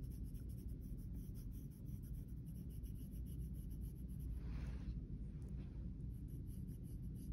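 Red colored pencil lightly outlining on drawing paper: a faint, soft scratching, with one louder stroke about four and a half seconds in.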